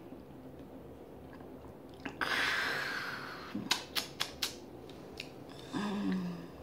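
Close-miked eating sounds: a loud rush of noise about two seconds in, a quick run of four or five sharp clicks, then a brief low falling hum near the end.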